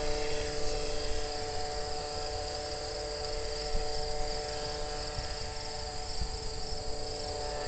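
Steady insect chorus of crickets, a high wavering trill, over a distant steady multi-tone drone from the motor of the radio-controlled powered hang glider model in flight.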